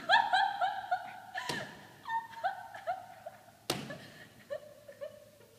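A girl crying theatrically: high-pitched sobs in quick short catches, loudest at the start and fading in and out, with two sharp thumps about a second and a half in and near the four-second mark.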